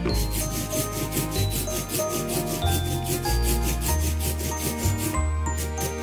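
Ink roller (brayer) rolled back and forth through tacky lino-printing ink on a tray, a sticky rubbing sound, to spread the ink evenly before printing. Background Christmas music with bells and a bass line plays throughout.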